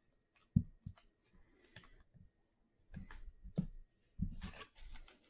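Trading cards being handled and set down on a stack on a tabletop: scattered light taps and clicks, with short rustles near the end.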